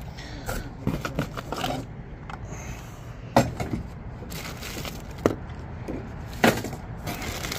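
Toys and plastic-bagged items being handled and dropped into a cardboard box: scattered rustling and light knocks, with a few sharper knocks in the second half.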